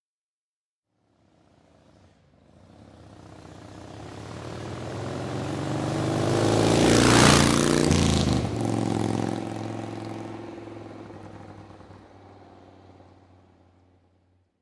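A motor vehicle passing by: its engine fades in from silence, grows steadily louder to a peak about halfway through, drops in pitch as it goes past, then fades away to nothing.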